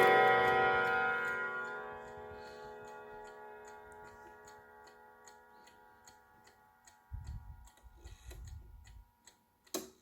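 Howard Miller triple-chime clock: the last chime notes ring out and fade over the first couple of seconds, leaving the movement's steady ticking at about two ticks a second. A few dull low thumps come around seven to nine seconds in, and a sharp click just before the end.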